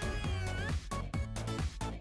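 Upbeat background music with a steady beat. Over it a puppy whines in excitement: a high, drawn-out whine that rises in pitch about half a second in.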